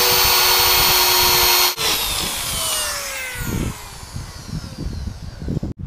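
Corded electric drill spinning a sanding drum against a Lexan (polycarbonate) sheet, grinding a shallow recess, with a loud steady whine. About two seconds in the sound cuts, and then the drill's whine falls steadily as it spins down.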